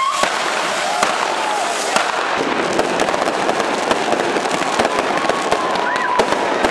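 Fireworks crackling and hissing densely, with sharp pops and bangs scattered throughout.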